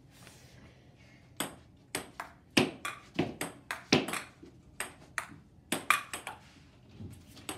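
Table tennis rally: the ball clicking sharply off the paddles and the table in quick alternation, about three hits a second, starting about a second and a half in and stopping shortly before the end.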